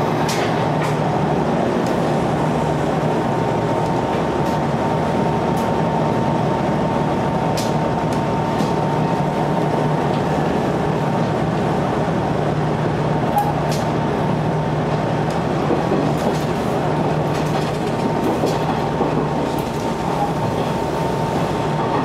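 Sanyo Electric Railway electric train running at steady speed, heard from inside the front car: a constant rumble with a steady whine, and scattered sharp clicks from the wheels.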